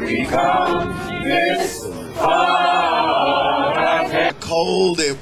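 A crowd of people singing together without instruments, with a long held note near the middle.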